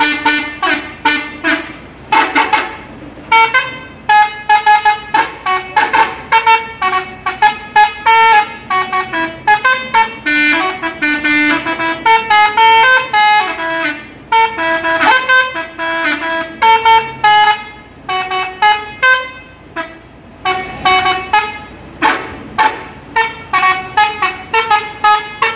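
Bus telolet horn, an eight-tone musical horn, playing rapid tunes of short toots at changing pitches, one note after another, with a brief pause about twenty seconds in.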